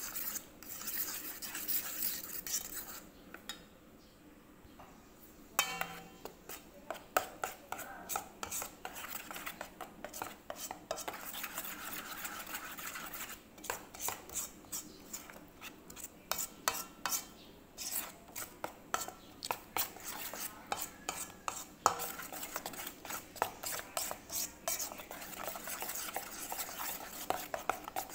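Utensil stirring a thick banana, flour and chocolate-drink pancake batter in a bowl, clicking and scraping against the bowl in quick runs of strokes, with a brief lull a few seconds in.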